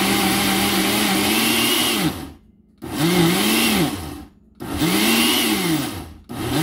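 Countertop blender grinding fresh corn kernels with condensed milk: one long run that stops about two seconds in, then short on-off pulses, the motor's pitch rising and falling with each.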